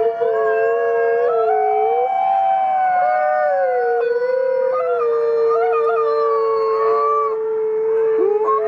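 Several canines howling together in chorus: long, held notes at different pitches overlapping continuously, each stepping and sliding up or down.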